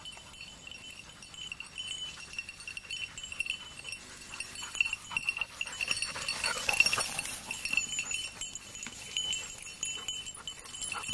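A small bell on a hunting dog's collar tinkles without a break as the dog works through dry grass and scrub. It grows louder, with rustling of the undergrowth, about six to seven seconds in, as the dog passes close.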